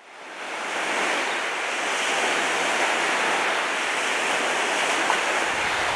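Lake waves washing against a rocky shoreline: a steady rushing wash that rises out of silence over the first second.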